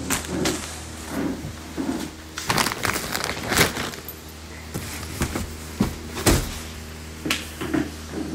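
Rustling and scraping of heavy embroidered lehenga fabric being handled close to the microphone. It comes in irregular bursts with a few sharp clicks, the loudest about a third of the way in and again about three-quarters of the way through, over a steady low hum.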